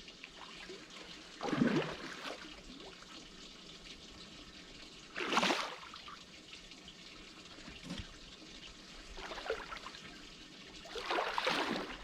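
A hooked blue catfish splashing and thrashing at the water's surface beside the boat while being played toward the net: a few separate splashes, the loudest about five seconds in.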